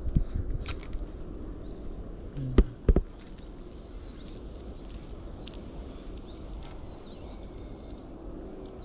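Outdoor ambience: a steady low rumble with repeated high chirping calls, and two sharp knocks in quick succession about two and a half seconds in.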